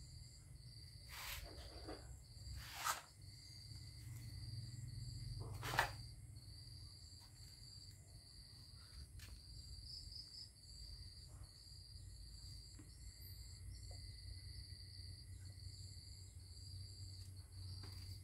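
Quiet background of a steady, high insect trill over a low rumble, with three short knocks in the first six seconds.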